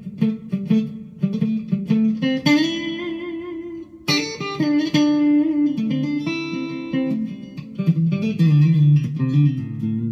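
Monoprice Indio Cali Classic Strat-copy electric guitar played through a small amp on the neck-and-middle pickup setting: picked notes and chords, a strummed chord about four seconds in, and a chord left ringing near the end. The tone is considerably brighter than a real Strat's.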